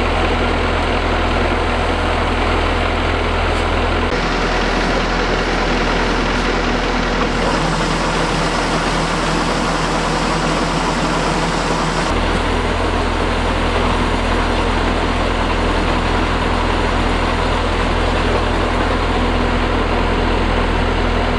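Combine harvester's engine running steadily, its low hum shifting abruptly about four and again about twelve seconds in.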